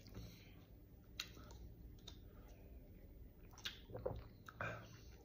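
Faint mouth sounds of a person tasting a drink: a few small smacks and clicks, then sips and swallows from a bottle about four seconds in.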